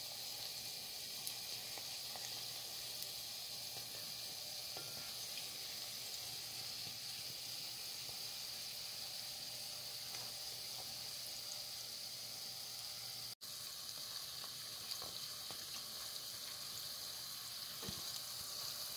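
Oliebollen batter balls deep-frying in a pot of hot oil: a steady sizzle, broken by a split-second gap about two-thirds of the way through.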